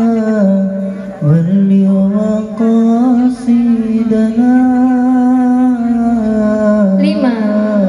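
A single voice singing a slow, chant-like melody, holding long notes that bend and glide, with brief breaks about a second and two and a half seconds in.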